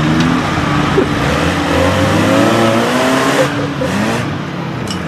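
Suzuki Samurai's engine revving hard under load as the 4x4 climbs loose sand, its pitch rising and falling repeatedly.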